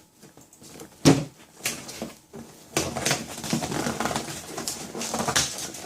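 Cardboard Nerdblock box being pulled open: one sharp tear about a second in, then steady crinkling and rustling of the packaging.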